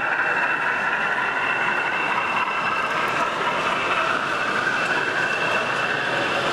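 Model freight train running along a layout, with a steady high whine and rolling noise from the motor and wheels on the track.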